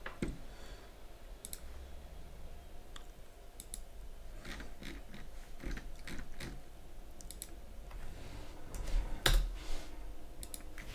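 Scattered computer mouse clicks and keyboard key presses at irregular intervals, with a louder short flurry of keystrokes near the end.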